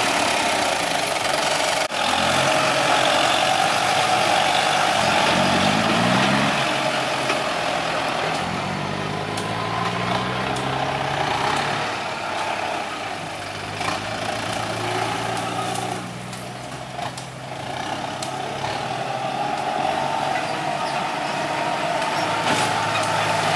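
Kubota M9540 tractor's four-cylinder diesel engine running while it works soil with its front blade. Its pitch rises and falls several times as it takes load, with a steady higher drone over it.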